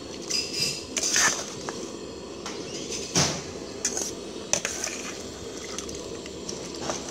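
Metal ladle and steel bowl clinking and knocking against an aluminium cooking pot as the porridge is stirred and young palm seeds are tipped from the bowl into the pot: several sharp clinks, the loudest about a second in and about three seconds in, over a steady low rush.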